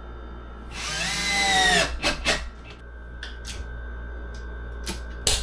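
Power drill running for about a second, its whine rising in pitch and then dipping slightly, followed by a few short clicks and knocks.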